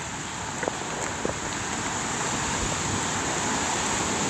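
Heavy rain falling steadily, a constant hiss that grows slightly louder, with a few faint ticks.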